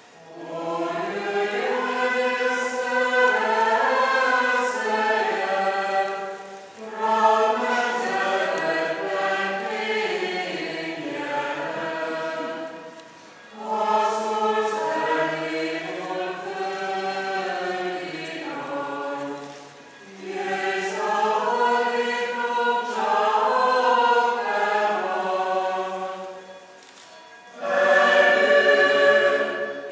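Choir singing a Christmas song in phrases of about six or seven seconds, each followed by a short pause for breath; the last phrase, near the end, is the loudest.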